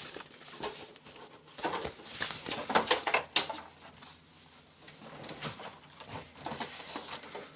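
Handling of the contents of a Pokémon collection tin: scattered light clicks and rustles of paper and plastic items being taken out and turned over.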